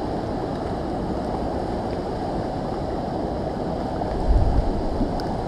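Fast river current rushing steadily, with a brief low bump about four seconds in.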